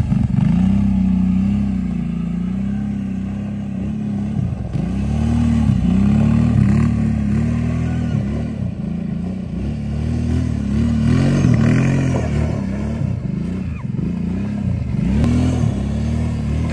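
Kawasaki Brute Force ATV engine revving up and dropping back again and again as the rider works the throttle, spinning donuts on snow. The pitch rises and falls about a dozen times.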